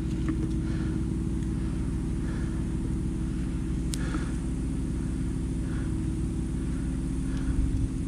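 Diesel burner firing a melting furnace: a steady rumble with a low hum. Faint scrapes at intervals and one sharp tick about halfway through as a steel rod prods the hot, under-roasted material.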